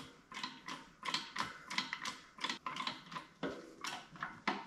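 Small hydraulic shop press being pumped while it presses a bushing into a steering idler arm: a run of light metallic clicks and ticks, several a second, from the pump handle and the press fittings.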